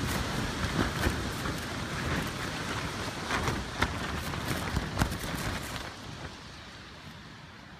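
A storm beating on a tent, heard from inside: a steady rushing noise with many sharp slaps and patters on the fabric. It dies down noticeably about six seconds in.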